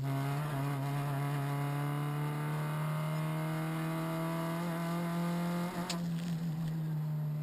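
Rally Renault Clio RS four-cylinder engine heard from inside the cabin, pulling under load with the revs climbing gradually. About six seconds in there is a sharp click, and the engine note changes after it.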